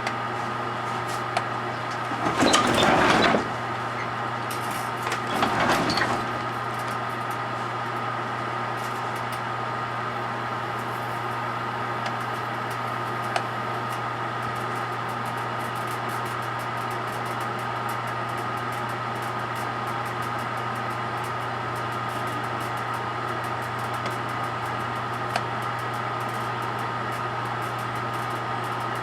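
Microwave oven running with a steady hum and a thin steady tone, heating a metal aerosol can of spray butter. About two seconds in and again about five seconds in come two louder noisy bursts of a second or so each, and faint scattered ticks follow.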